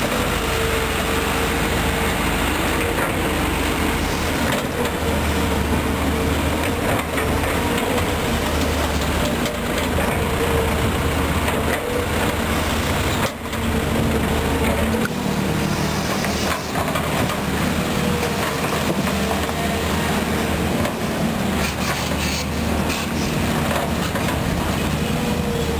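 Volvo EC210B tracked excavator's six-cylinder diesel engine running steadily under load as the boom and bucket work, moving dirt, with a constant droning tone over a low rumble.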